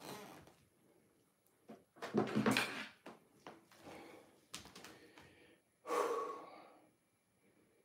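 A person's breathing, two loud breaths about two seconds in and about six seconds in, with a few light knocks between.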